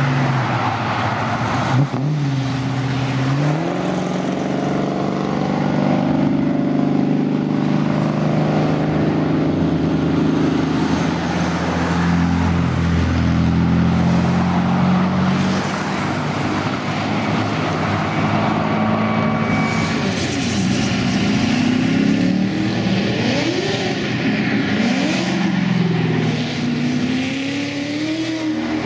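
Car engines driving off, mostly a steady engine note through the first half. In the second half an engine is revved repeatedly, its pitch rising and falling several times.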